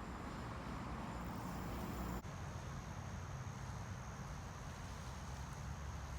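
Lakeshore outdoor ambience: a steady low rumble and hiss under a thin, continuous high insect trill. The background shifts abruptly about two seconds in.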